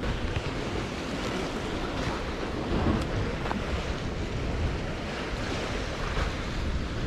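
Sea waves washing, with wind buffeting the microphone in a steady low rumble.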